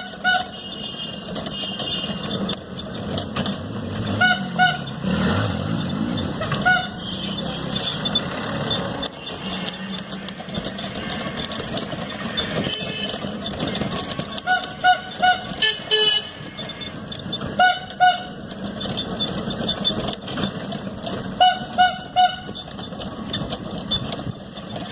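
A vehicle horn giving short toots, singly or in quick runs of two or three, every few seconds, over continuous street traffic noise.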